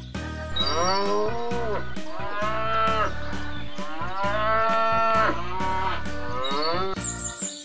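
Cattle mooing: about four long calls in a row, each rising and then falling in pitch.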